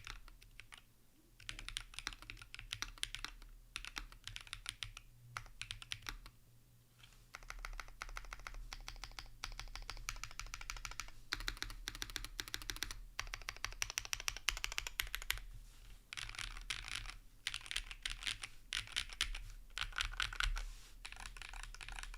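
Mechanical keyboard typing: a Tenet70 gasket-mount board with an aluminium plate, plate and PCB foam, Bolsa Supply Zaku switches and CRP R5 keycaps, typed in fast runs with short pauses between them.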